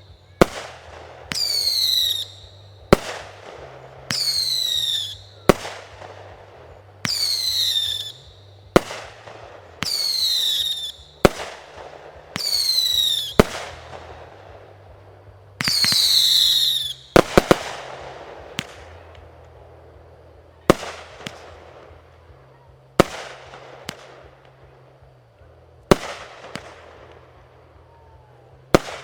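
Fireworks going off: a string of whistling fireworks, each a falling whistle of about a second cut off by a sharp bang, then a run of single bangs about every two to three seconds in the second half.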